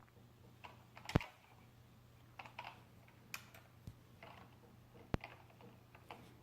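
Computer keyboard keystrokes: a handful of separate, irregular key presses rather than fast continuous typing, over a faint steady low hum.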